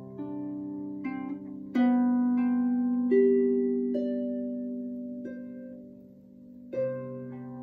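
Lyon & Healy harp played solo in a slow improvisation: plucked single notes and chords left to ring and fade. The loudest chord comes about two seconds in, another strong one near the end.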